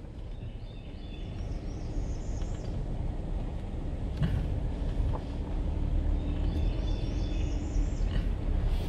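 Car crawling slowly along a dirt road, a steady low engine and tyre rumble heard from inside the cabin. Birds chirp outside in two short spells, one about two seconds in and another near the end.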